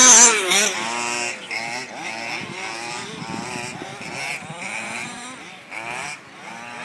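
Several HPI Baja 1/5-scale RC buggies racing, their small two-stroke petrol engines revving up and down through the corners. The loudest burst comes right at the start.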